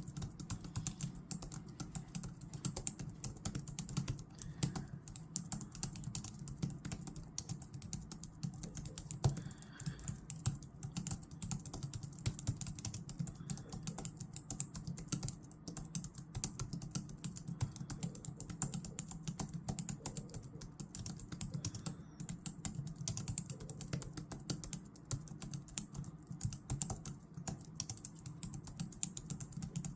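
Computer keyboard being typed on continuously: a dense, steady stream of keystrokes with no pauses.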